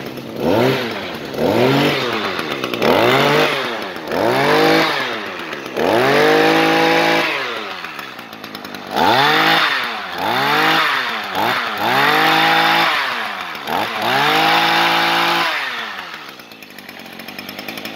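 Shindaiwa (Echo) SSR2201 brush cutter's small two-stroke engine, just started, being revved up and down about ten times on the throttle trigger. Some revs are held high for a second or more, and it drops back to idle near the end.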